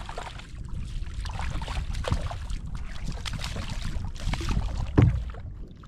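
A hooked fish thrashing at the surface beside a kayak: a run of splashes, with the heaviest one about five seconds in. Wind rumbles on the microphone underneath.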